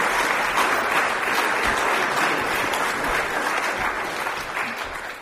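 Audience applauding, a steady dense clapping that tails off near the end.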